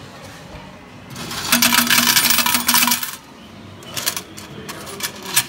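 Banknote-to-coin changer paying out coins: a rapid metallic clatter of coins pouring into the metal coin tray for about two seconds, over a steady low hum. Then a few separate clinks as a hand scoops the coins out of the tray.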